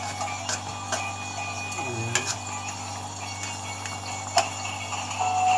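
A metal utensil clicking against an aluminium wok while the fish in it is stirred: a handful of scattered sharp clicks over a steady low hum.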